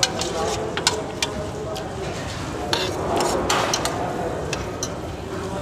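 Metal fork and spoon clinking and scraping against a stainless steel food tray in irregular sharp clicks while eating, over a steady background murmur.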